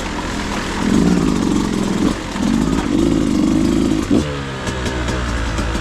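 Two-stroke dirt bike engine (Beta 200RR) revving unevenly under throttle, its pitch climbing twice in the last two seconds.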